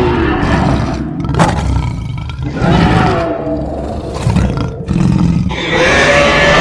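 Monster creature sound effects: a run of big-cat-like roars and growls, about five in a row, each bending in pitch, with a short sharp click about a second and a half in.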